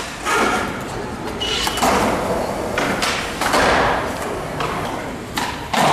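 Skateboard on concrete: wheels rolling in stretches, with several sharp board knocks and landings, the sharpest pair near the end.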